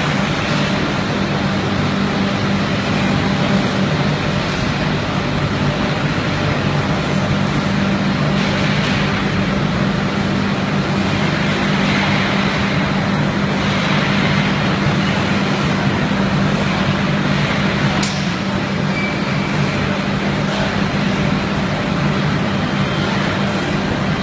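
Loud, steady drone of powder coating plant machinery, with a constant low hum under a broad rushing noise and a single sharp click about eighteen seconds in.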